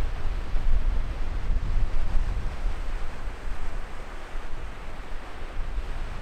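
Choppy surf breaking and washing on the beach, with strong wind buffeting the microphone as a heavy, uneven low rumble.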